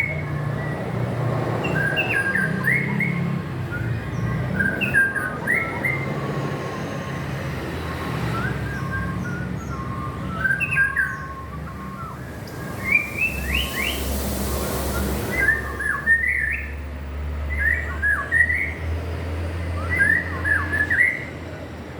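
White-rumped shama (murai batu) singing: a run of short whistled phrases of quick rising and falling notes, repeated with brief pauses between them.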